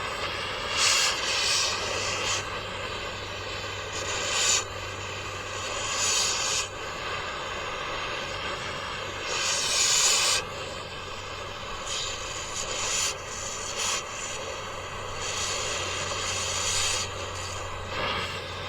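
Angle grinder running with a steady whine, surging louder and grittier a dozen or so times for half a second to a second as the disc is pressed into the metal to cut it.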